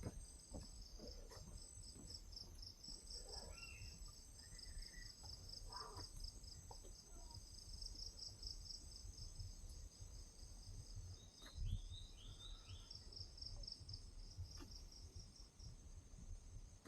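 Faint, steady high-pitched chorus of insects trilling in fast even pulses. A few short bird chirps come in, with a quick run of short falling notes about two-thirds of the way through, over a low rumble.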